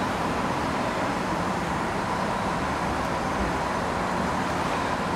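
Steady background noise with a thin, even whine running through it, like a machine hum; no splashing or other sudden sounds.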